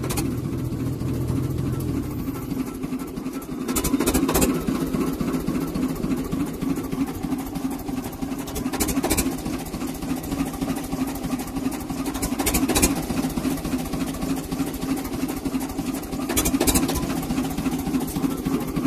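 Small narrow-gauge locomotive's engine running steadily as it travels along the track, heard from the open cab; its deeper note drops away about two seconds in. A few short clattering knocks come through at irregular intervals.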